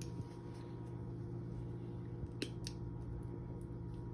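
A few faint, short clicks and taps from small objects being handled, over a steady low hum.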